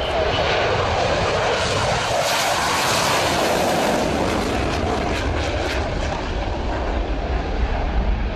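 McDonnell Douglas F-15 Eagle taking off on afterburner, its twin jet engines making a loud, steady rushing noise. A deeper rumble builds toward the end.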